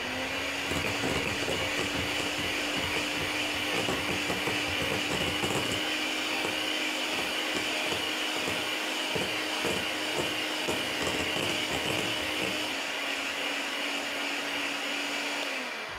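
Electric hand mixer running steadily with a constant motor whine, its beaters whipping cake batter in a glass bowl to combine it. The motor winds down and stops near the end.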